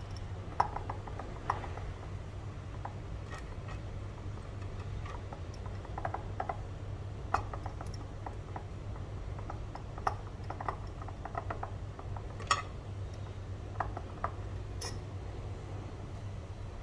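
Scattered light clicks and taps against a glass clip-top jar as cooked rice and fish are layered into it by hand, over a steady low hum.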